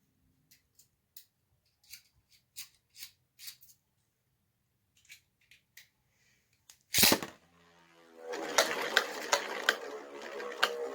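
Faint scattered plastic clicks, then a loud snap about seven seconds in as 3D-printed Beyblade spinning tops are launched. From about eight seconds the tops spin with a steady whirring hum, broken by sharp clicks as they clash.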